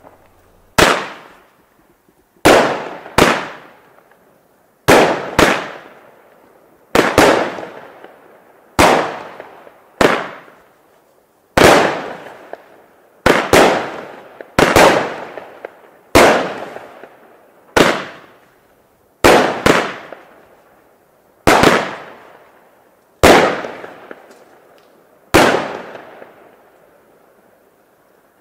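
Weco Bloody Mary 12-shot consumer firework battery (cake) firing. A run of sharp bangs comes every one to two seconds, some in quick pairs, and each dies away over about a second. The last bang is about 26 seconds in.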